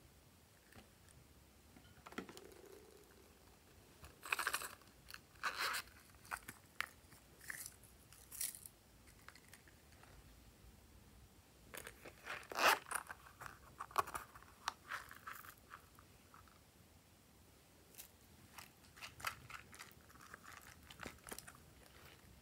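Small plastic items handled over a tray of slime: crinkly clicks and crunches as a plastic container is worked and gold plastic shell charms and sprinkles are dropped in. The sounds come in three clusters, about four seconds in, about twelve seconds in, and near the end.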